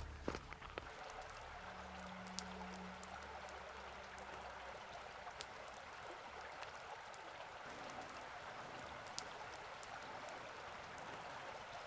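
Shallow creek water trickling over sandstone and pebbles: a faint, steady water sound with a few small clicks.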